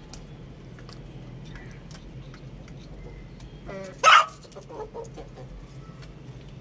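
Young chickens pecking at salad in a steel bowl, with scattered faint beak clicks. About four seconds in, one lets out a short, loud squawk, followed by a few softer clucks.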